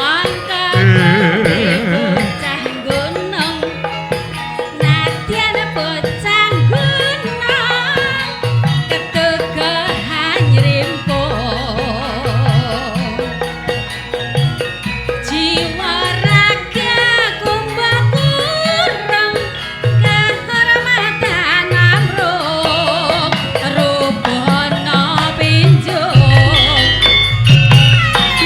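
Javanese gamelan music: repeated low kendang hand-drum strokes under a wavering, ornamented melody line.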